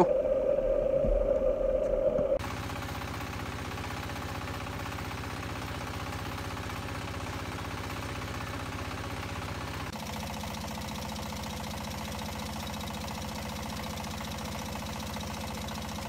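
Fishing boat's engine running steadily under way, with a fast, even beat. The first two seconds hold a louder steady hum, and the engine sound shifts in tone about ten seconds in.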